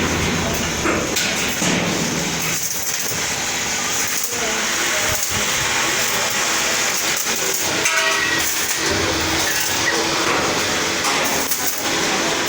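Electric welding of steel wire mesh to a truck's partition frame: a steady, loud hissing noise that runs on without a break.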